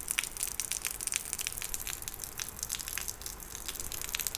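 Light rain falling: a steady hiss with many scattered small ticks of drops.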